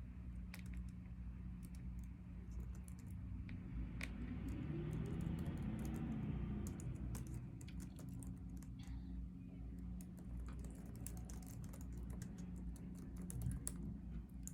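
Irregular light clicks and taps, like typing, over a steady low hum, with a soft rustling swell in the middle.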